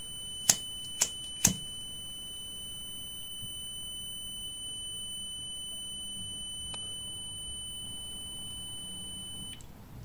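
Digital multimeter's continuity buzzer sounding one steady high beep through a refrigerator thermal cutout, then cutting off suddenly near the end as the lighter-heated cutout reaches its 72 °C trip point and opens the circuit. Three sharp clicks about a second in, from the lighter being struck.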